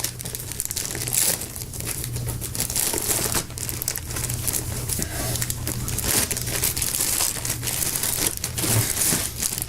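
Crinkling and rustling as a replacement Honeywell air purifier filter is handled and fitted, with many small crackles over a steady low hum.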